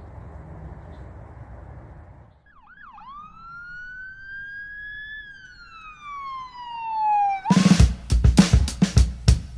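Faint outdoor background noise for about two seconds, then a siren sound effect: a quick yelp, then one slow wail that rises and falls. About seven and a half seconds in it gives way to loud drum-heavy intro music.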